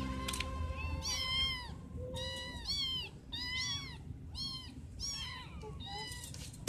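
Month-old kitten mewing over and over: a string of short, high-pitched mews, each rising and then falling in pitch, about half a second to a second apart.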